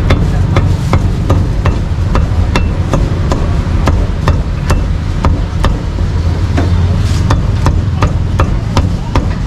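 Meat cleaver chopping roasted meat on a chopping block: a steady run of sharp chops, about three a second, over a steady low rumble.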